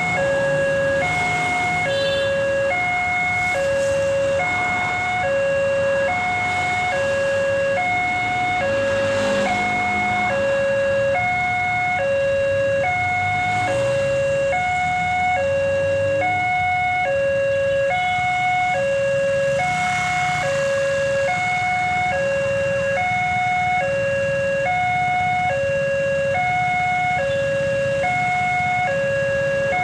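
Railway level-crossing warning siren alternating steadily between a low and a high tone, a little faster than one low-high pair a second, with a hoarse tone that sounds almost like laughing. Road traffic rumbles underneath.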